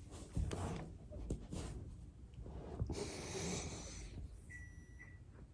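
A person breathing heavily while working on a foam roller, with body-on-roller rubbing and a few faint clicks.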